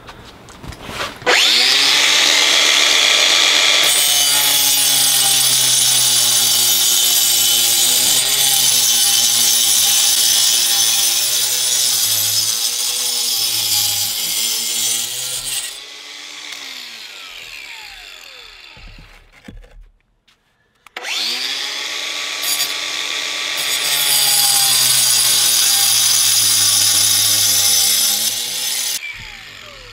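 Cordless Makita 18V angle grinder with a masonry blade cutting through a firebrick. It makes two long cuts, its pitch wavering as the blade bites, and each cut ends as the grinder winds down, the first about halfway through and the second near the end.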